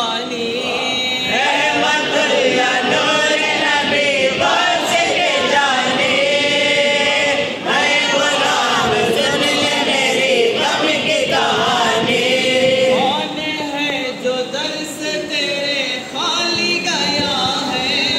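Men singing a devotional salaam together in Urdu, one voice leading at a microphone and the group singing along.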